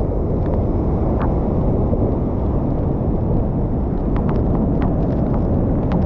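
Steady low roar of a large waterfall, a dense rushing noise with no pauses.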